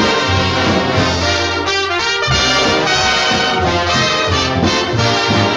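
Lively orchestral cartoon title music led by brass, trombones and trumpets over a moving bass line.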